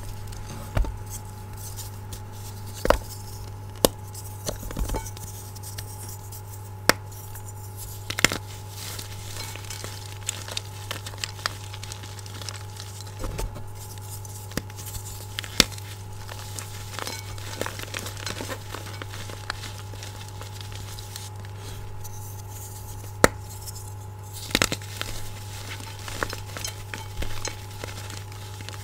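Blocks of gym chalk being crushed and crumbled by hand in a glass bowl: soft crunching and crumbling with scattered sharp cracks and clinks of chalk pieces against the glass, at irregular intervals.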